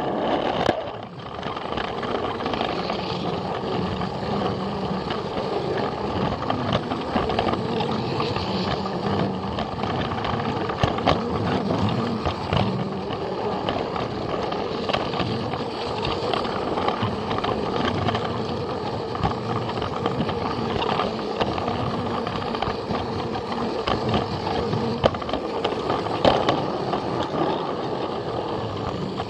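Battery-powered Plarail toy train running on plastic track: a steady motor whine and wheel rattle, with a few sharp clicks from the track joints.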